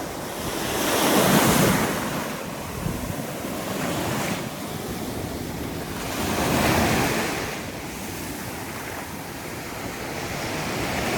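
Waves breaking and washing up the beach, surging loudest about a second in and again about seven seconds in, with wind buffeting the microphone.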